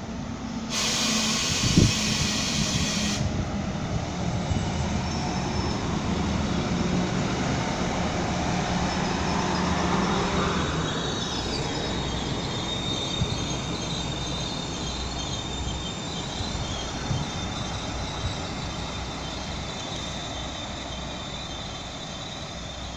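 Alstom Coradia LINT diesel multiple unit running into the station and past along the platform, its engine and wheels making a steady rumble. Its whine rises to a peak about ten seconds in and then falls as it goes by. A loud hiss fills the first few seconds with a sharp knock just after it, and a high steady tone runs through the second half.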